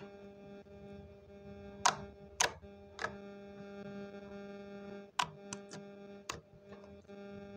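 Clear yellow jelly slime being pressed and poked with fingers close to a microphone, giving scattered sharp pops and clicks, about seven of them, with the loudest a little under two seconds in. A steady hum runs underneath.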